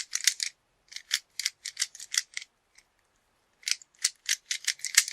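Rubik's Cube layers being turned quickly by hand: a fast, irregular run of plastic clicks and clacks, with a pause of about a second in the middle.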